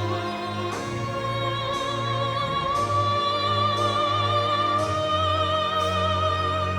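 Background classical music: an orchestra with a high singing voice holding long notes with vibrato.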